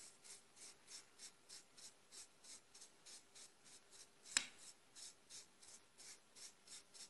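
Faint hand brush sweeping sawdust and fuzz off a freshly machine-carved wooden plaque, in quick even strokes about three a second. One sharp click about four seconds in.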